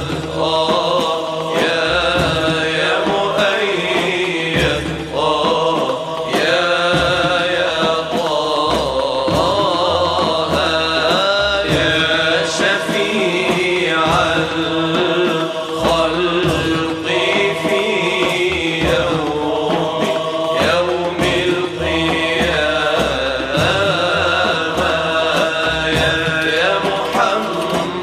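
Voices chanting an Arabic madih nasheed in praise of the Prophet Muhammad, a devotional song with melodic, gliding lines sung without pause.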